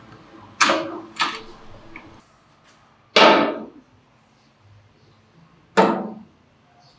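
Parts clunking against a Vespa scooter's painted steel bodywork during reassembly: four sharp knocks, each dying away within about half a second, the first two close together and the others about two and a half seconds apart.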